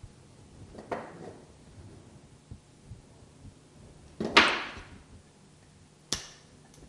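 A few brief handling noises on the workbench, the loudest a short rasp about four seconds in, then a sharp snip about six seconds in as diagonal cutters cut through a thin metal strip.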